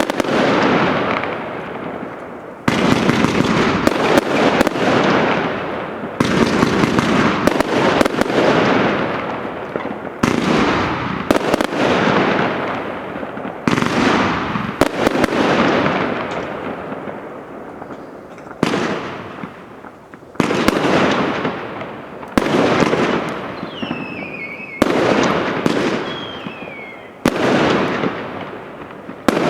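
Consumer fireworks battery (cake) firing shot after shot: a sharp bang every one to two seconds, each trailing off in a crackling burst. Near the end, a couple of falling whistles sound over the bursts.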